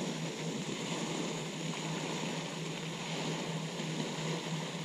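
Steady even hiss of falling water from a pond's spray fountain, with a low steady hum under it.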